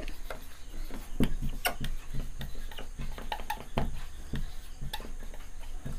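Marker pen writing on a whiteboard: irregular light taps and scratchy strokes, a few per second, as letters are written.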